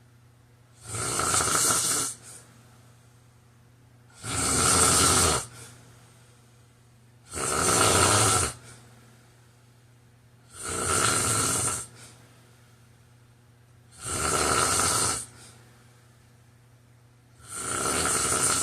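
A man snoring steadily in his sleep: six loud, rasping snores, each just over a second long, coming about every three seconds.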